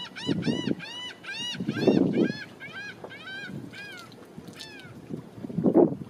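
A bird calling a long series of short, nasal, arched notes, about four or five a second, that slow and lengthen toward a final drawn-out falling note about four and a half seconds in. Low rumbles come through about two seconds in and again near the end, loudest of all.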